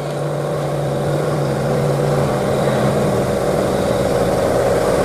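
Diesel truck engine running steadily: a low hum for the first couple of seconds, then a rougher, noisier drone.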